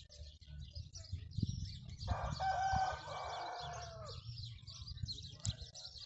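A rooster crows once, starting about two seconds in: one call lasting about two seconds that drops in pitch at the end. Small birds chirp steadily throughout.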